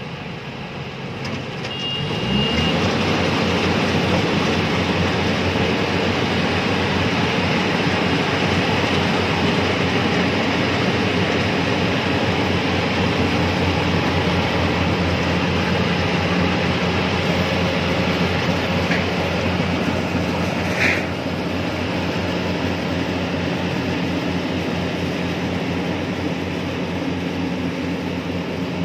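Yanmar YH850 rice combine harvester running under load as it cuts through standing rice: a steady diesel engine drone mixed with the noise of the cutting and threshing works. It grows louder about two seconds in, and a brief high squeak cuts through about three-quarters of the way along.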